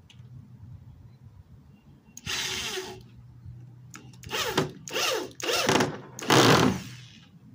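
Electric drill driving screws into the wooden speaker box in five short runs: one about two seconds in, then four quicker runs near the end, the last the loudest. The motor's pitch slides within each run.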